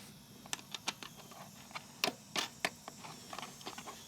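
Scattered light clicks and taps of an air filter housing and wing nut being fitted back onto a small engine, with a few sharper knocks about two seconds in.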